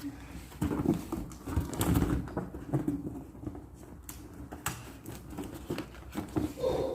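Inflated latex balloons being handled and assembled: irregular rubbing squeaks and soft knocks and taps.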